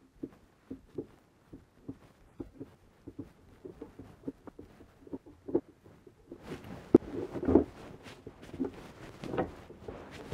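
Light wooden taps and knocks as beehive frame parts are handled in a wooden assembly jig. From about six seconds in, the knocks grow louder and come faster as wooden top bars are laid onto the frames.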